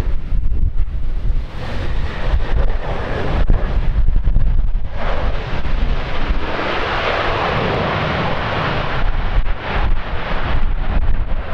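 Jet engines of a landing Embraer ERJ-190 airliner, a broad roar that swells about five seconds in and eases after about four seconds. Strong wind buffets the microphone throughout with a low, gusty rumble.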